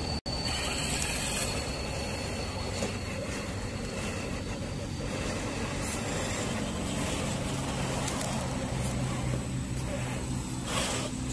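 Axial SCX10 II scale crawler's electric motor and gear drive running under load as the truck crawls up a steep dirt ledge, over a steady background hiss; a low hum from the drive grows stronger in the second half.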